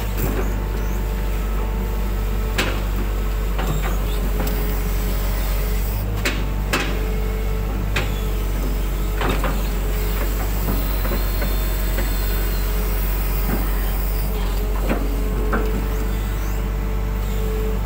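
Hitachi hydraulic excavator's diesel engine running steadily under load with a steady whine over it, and a few sharp clunks and knocks scattered through as the boom and bucket work the mud.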